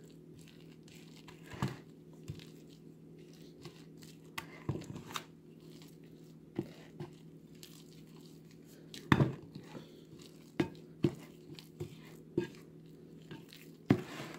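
Wooden spoon stirring a wet, shaggy flour-and-water dough in a ceramic bowl: soft irregular scraping and squelching, with occasional knocks of the spoon against the bowl, the loudest about nine seconds in.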